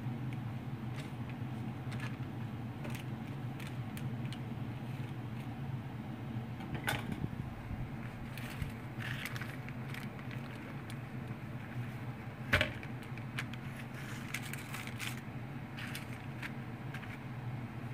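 Scattered small clicks and scrapes of a knife and a metal cake lifter against baking paper as a rolled sponge cake is slid and lifted, over a steady low hum. One sharper click comes a little past the middle.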